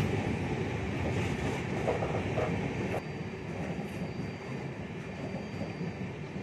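Passenger train coach running along the track: a steady rumble of wheels and carriage noise, dropping a little in level about three seconds in, after which a faint high steady whine can be heard.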